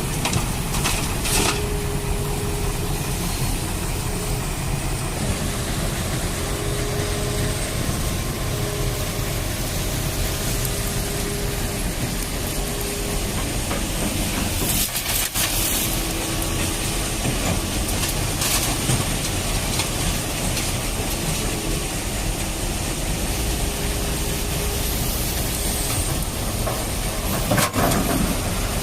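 Radio-controlled toy excavator and dump trucks working sand: a thin motor whine that starts and stops in short runs over a steady low rumble, with a few short clicks.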